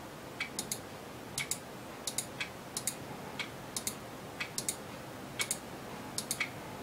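Computer mouse clicking: short, sharp clicks, many in quick pairs, a little under two a second, as on-screen items are clicked one after another.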